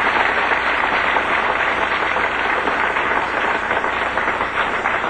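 Audience applauding, a dense steady clatter of many hands that eases off a little toward the end.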